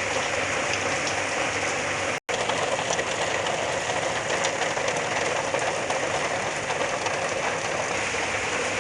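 Heavy rain pouring down steadily in a storm. The sound drops out for an instant about two seconds in.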